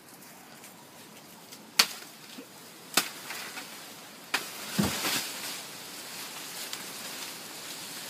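Three sharp machete chops into a banana plant's stalk, a little over a second apart, followed about halfway through by a thump and a burst of rustling banana leaves, then softer rustling.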